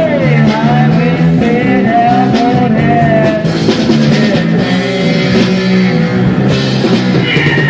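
Rock band playing: guitar, bass and drums, with a high melodic line sliding up and down in pitch through the first half.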